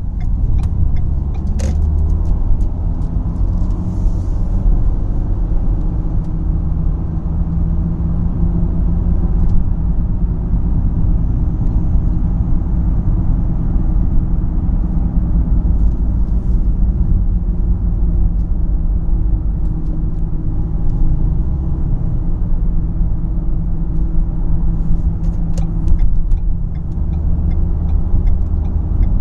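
Cabin noise of a 2012 Ford Fusion SEL cruising at about 55 mph: steady road and tyre rumble with a low hum running through it. The hum grows louder with speed and its cause is unknown; the tyres are new and balanced and the alignment is good, and the owner cannot tell whether it comes from the front or the back.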